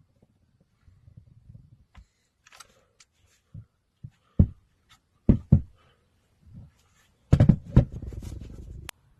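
Handling noise: a series of irregular clicks and knocks, ending in a louder clatter and a rustling scrape of about a second and a half near the end.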